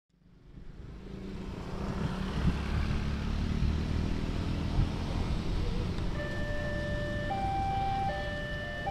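Steady low rumble of road traffic with passing motorcycles. About six seconds in, a railway level crossing's electronic warning siren starts, alternating between two tones about once a second.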